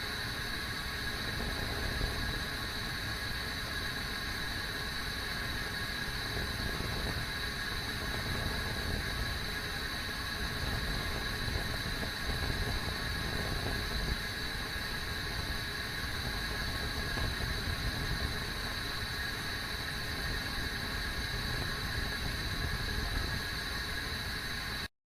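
Kettle heating toward the boil: a steady rumbling, hissing boil with two faint steady high tones over it. It cuts off suddenly near the end.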